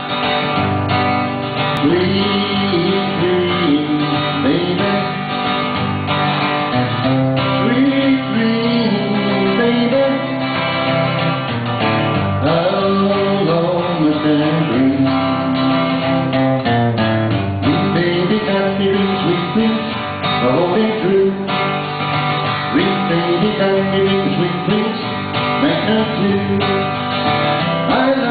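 Acoustic guitar strummed steadily through a 1960s pop song, with a melody carried over the chords.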